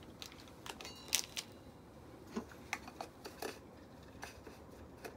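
Crinkling and a few sharp little clicks and taps from handling a small plastic sachet of granular drink powder and a titanium bottle, with a cluster of crisp rustles about a second in.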